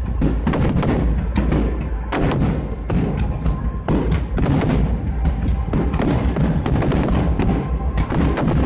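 Aerial fireworks bursting in rapid succession: a dense series of booms and cracks over a continuous low rumble.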